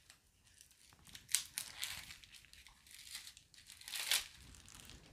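Clear plastic shrink wrap being torn and crinkled off a card box by hand, in several short rustles, loudest about a second and a half in and again about four seconds in.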